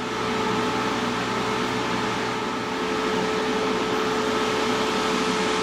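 IMUSA Easy Fry air fryer running as it cooks, its fan blowing a steady whooshing noise with a constant hum.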